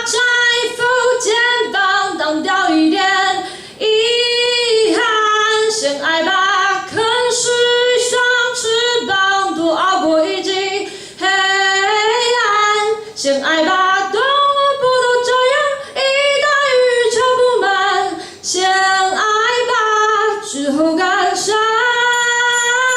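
A young woman singing a Mandarin pop song solo, in sung phrases broken by short pauses for breath.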